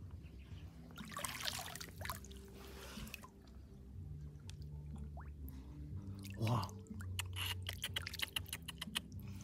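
Hands sloshing and scooping through shallow muddy water, splashing, then a quick run of drips and small splashes near the end as water runs off cupped hands.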